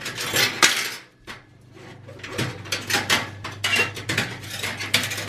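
Thin sheet-metal PCI slot cover brackets clinking and rattling against the steel chassis of an HP Compaq Elite 8200 tower as they are worked loose by hand. A few sharp clicks come first, then after a lull of about a second a dense run of irregular metallic clinks.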